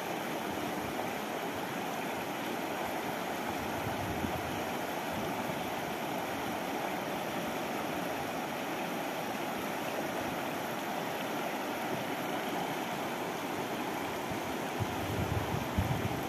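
Steady rush of a shallow river running over stones and small rapids. A few low bumps come near the end.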